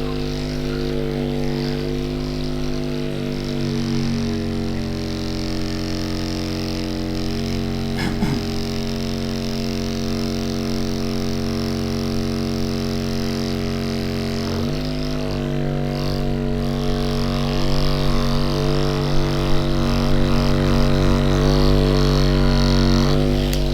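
Electric massage device's motor running steadily, its pitch stepping down about four seconds in and back up near fifteen seconds, then cutting off suddenly at the end.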